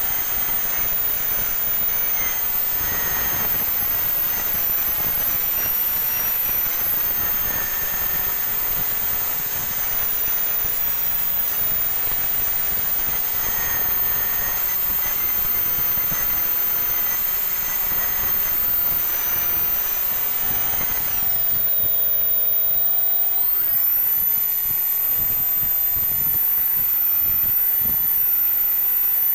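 Small electric power tool running steadily with a high-pitched whine over a grinding hiss. About two-thirds of the way through, its pitch drops for a couple of seconds, then rises back.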